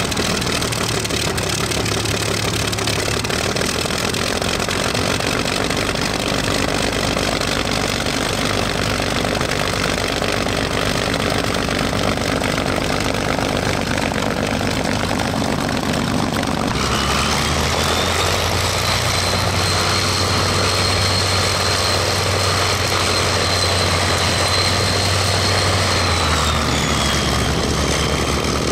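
Messerschmitt Bf 109's V12 piston engine running steadily at low power with the propeller turning. About two-thirds of the way in the sound changes abruptly, and a high whine rises, holds steady, then drops away near the end as the fighter taxis.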